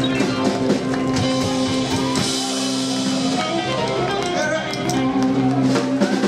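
Live rock and roll band playing: electric guitar, upright double bass and drum kit.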